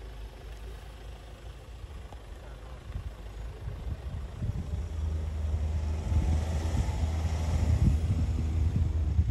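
Ford Ranger 2.2 L four-cylinder diesel engine running at near-idle revs in low-range 4x4, with the rear diff locked, as it crawls the pickup over a steep hump. The low, steady engine note grows louder about halfway through.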